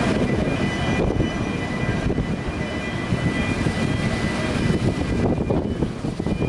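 Blue Star 2 ferry's engines running with a steady low rumble and a faint high whine as the ship manoeuvres stern-first to dock, mixed with gusty wind buffeting.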